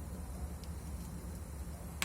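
Wood fire burning in a fireplace: a steady low rumble of flames, with one faint crackle about a third of the way in.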